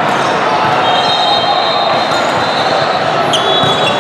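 Loud, echoing din of a convention hall full of volleyball courts in play: many overlapping voices and balls being hit and bouncing, with high squeaks now and then.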